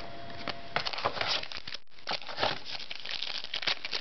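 Foil trading-card pack wrapper crinkling and tearing as it is opened, in quick bunches of rustling crackles with a brief pause midway.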